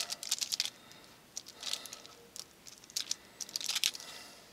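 Thin wooden stir stick mixing two-part epoxy on a clear plastic sheet: soft, irregular scrapes and light ticks that come in a few short clusters.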